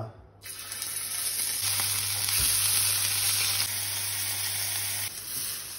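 Marinated veal cubes sizzling as they sear in oil on a hot griddle plate: a steady frying hiss that starts about half a second in as the meat goes on.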